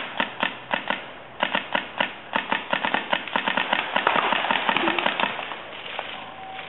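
Paintball markers firing in fast, uneven volleys of sharp pops, several a second, thinning out after about five seconds.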